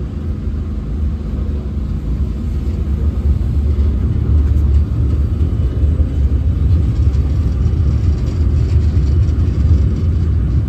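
Train rumbling as it rolls out of the station, heard from inside an old two-axle 'Donnerbüchse' passenger coach. The low rumble grows louder over the first few seconds as the train gathers speed, then holds steady.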